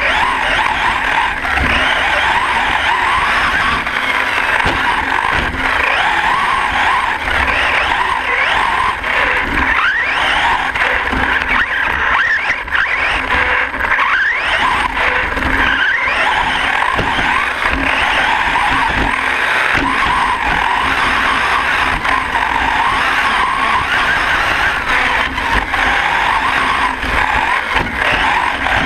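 Onboard sound of a Hyper 10SC electric short-course RC truck racing on dirt: its Castle 3800KV brushless motor and drivetrain whining, the pitch rising and falling with the throttle, over a constant rumble and knocking from the chassis and tyres over the bumps.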